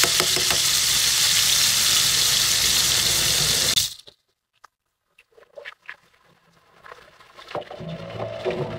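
Threadfin bream frying in hot oil in a nonstick pan: a loud, steady sizzle that cuts off abruptly about four seconds in. After that it is much quieter, with a few faint clicks.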